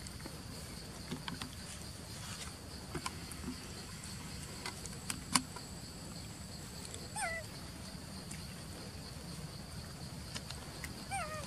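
Steady high-pitched insect chirring, with scattered light clicks and rustles close by. Two short wavering calls come about seven seconds in and again near the end.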